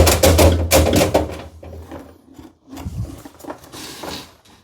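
Dryer-vent cleaning brush and its extension rods clattering and scraping inside the vent duct, with rapid knocks and a low hum for about the first two seconds, then a few softer knocks and rubs.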